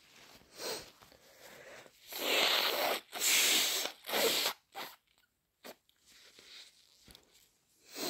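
A person with a head cold blowing their nose hard into a tissue: three wet, forceful blows in quick succession about two seconds in, each lasting about a second, followed by a couple of short snorts and faint tissue rustling.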